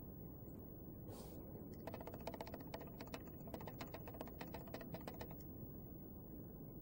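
A quick, irregular run of light clicks, several a second, from about two seconds in until about five seconds in, over a faint steady low hiss.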